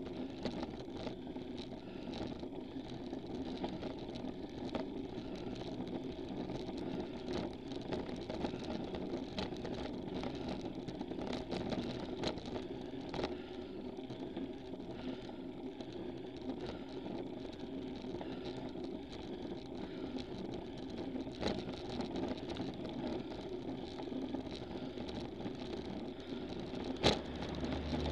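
Bicycle climbing slowly on pavement, heard through a handlebar-mounted camera: a steady rumble of tyres and drivetrain with scattered small clicks. A sharp click comes about a second before the end, as a car draws alongside.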